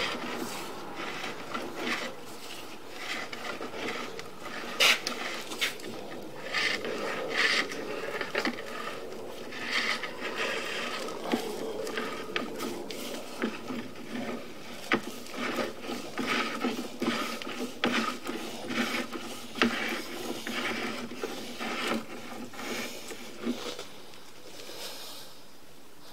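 Sewer inspection camera's push cable being worked back and forth against a blockage in the line: irregular scraping and rubbing with sharp clicks, stopping near the end.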